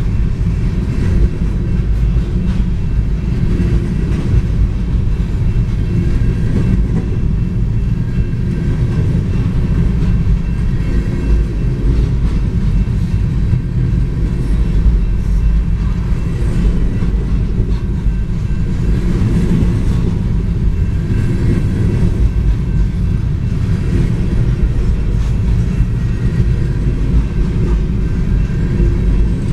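Empty covered hopper cars of a freight train rolling past at a grade crossing: a steady, unbroken sound of wheels on rail, with most of its weight low down.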